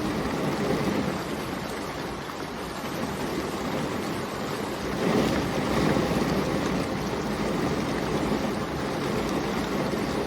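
Steady rainfall, a continuous hiss that swells for a moment about halfway through.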